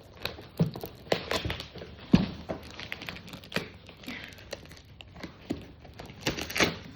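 Cardboard shipping box being torn open by hand: irregular rips, scrapes and rustles, with a sharp knock about two seconds in.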